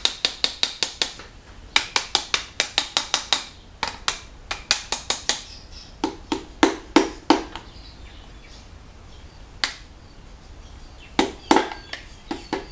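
Light, rapid taps on a piston crown, in runs of several at a time with short pauses between, as a piston is tapped down into its cylinder bore in a 4M40T engine block.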